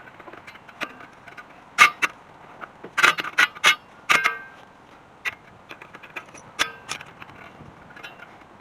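Hand tools and metal brake parts clinking and knocking during drum-brake disassembly. Irregular sharp clicks and clanks, some ringing briefly, with the loudest knock about two seconds in and a quick run of clanks at three to four seconds.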